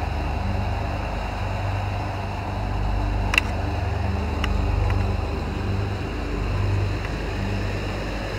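Steady low rumbling background noise outdoors, with a sharp click a little over three seconds in and two fainter clicks about a second later.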